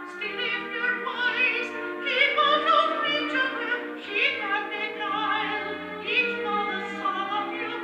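An operatic soprano-style vocal with wide vibrato, sung by a man in falsetto, singing an Edwardian musical-comedy song over a symphony orchestra. It is a live concert recording played back from cassette on a hi-fi, with a dull top end.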